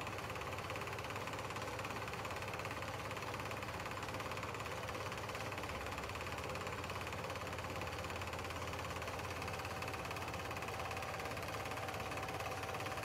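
Film projector running steadily: an even mechanical whir with a low electrical hum beneath it.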